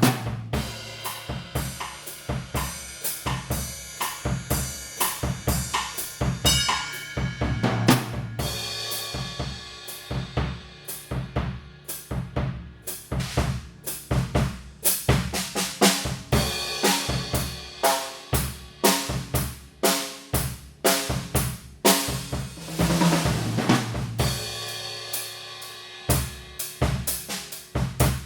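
Yamaha Stage Custom Birch drum kit with Paiste PST 8 cymbals played in a steady groove: kick drum, snare and hi-hat, with cymbal crashes ringing out at several points.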